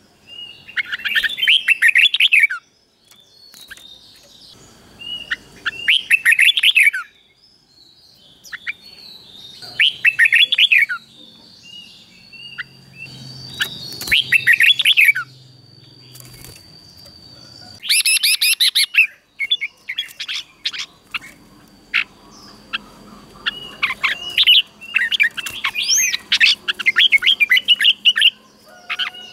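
Red-whiskered bulbul singing: short phrases of quick whistled notes, one every few seconds, with the phrases crowding together near the end.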